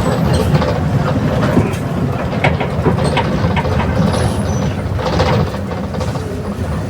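Mercedes-Benz OF 1721 diesel bus running on the road: a steady low drone from the engine and drivetrain with scattered clicks and rattles. The rear differential is growling.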